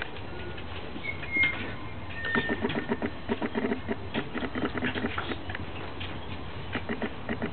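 A Cairn terrier and a moodle play-fighting, growling in quick pulsing spurts with short pauses. A brief high squeal comes about a second in and is the loudest moment.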